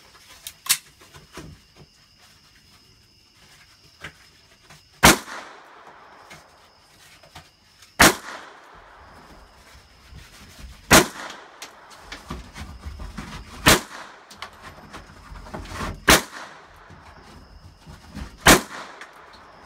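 Gunshots fired one at a time, six loud shots about two and a half to three seconds apart, each with a short ringing tail. Fainter sharp pops fall between them.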